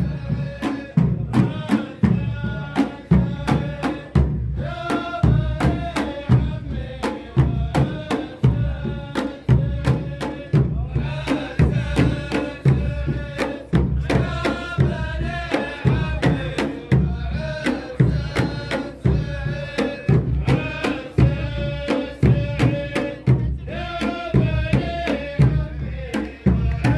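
Saudi ardah music: a group of men chanting verses in unison, in long held phrases, over a steady beat of large drums.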